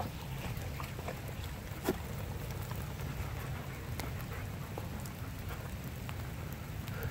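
Light rain: many small, irregular raindrop ticks over a low steady rumble, with one louder tap about two seconds in.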